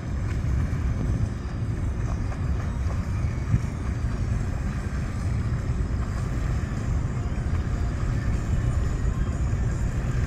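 Twin MerCruiser 6.2 V8 inboard engines of a Cruisers 340 Express cruiser running at low harbor speed: a steady low rumble.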